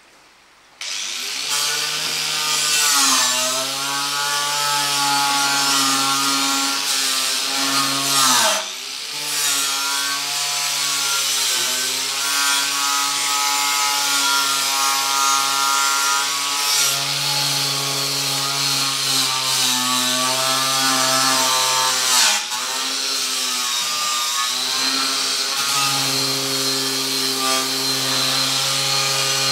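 Angle grinder switching on about a second in and running against a steel ammo box, its whine sagging and recovering in pitch as it is pressed on and eased off, with two brief drops partway through.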